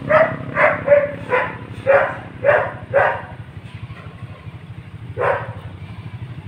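A dog barking in a quick run of short barks, about two a second, that stops about three seconds in, followed by one more bark about five seconds in, over a steady low hum.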